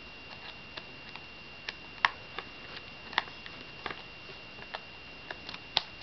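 Light clicks and taps at irregular intervals, the sharpest about two seconds in and near the end, as fingers work the loosened silver metal RAM cover in a MacBook's battery bay.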